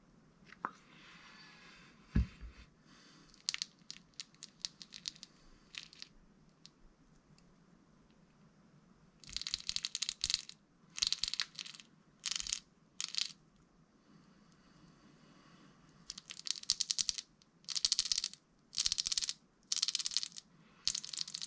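A single knock about two seconds in, then repeated bursts of rapid, fine clicking, each about a second long, from hand work on the parts of an RC car's centre differential.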